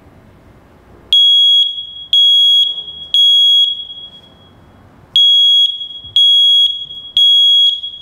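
Smoke detector alarm sounding on its push-to-test button: loud, high-pitched beeps, each about half a second, in two groups of three with a pause between them. This is the alarm pattern that means fire or smoke.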